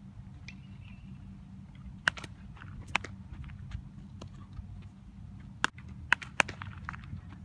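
Sharp cracks of a bat hitting baseballs and of balls smacking into leather gloves during ground-ball fielding practice: two about two and three seconds in, then a quick run of three near six seconds. A steady low rumble lies underneath.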